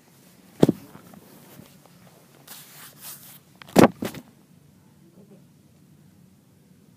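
Handling noise on a phone camera as it is moved about: a sharp knock, a short rustle, then a loud double knock a few seconds later.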